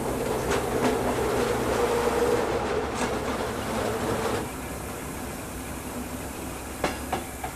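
H0-scale model train running on the layout: a steady electric motor hum with a few light clicks from the wheels and track. The hum drops away about four and a half seconds in, and a few sharper clicks come near the end.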